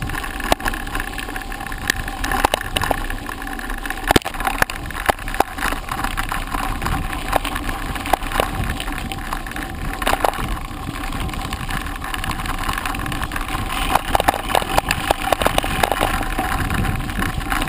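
Rough rolling noise of travel over a bumpy dirt and grass forest track, with steady rumble and many irregular knocks, clicks and rattles.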